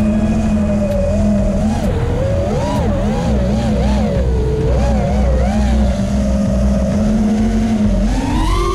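Brushless motors of an Eachine Wizard X220S FPV racing quad (T-Motor F40 Pro II) whining, their pitch wavering up and down with throttle over a low rushing noise. Near the end the whine climbs sharply and then drops away.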